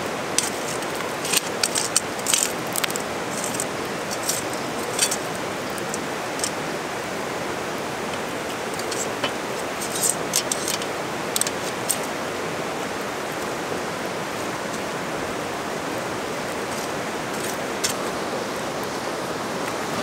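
Steady rushing of a nearby river, with scattered sharp metal clinks, in clusters near the start and around the middle, from tools knocking on a cast-iron dutch oven and its lid as they are handled.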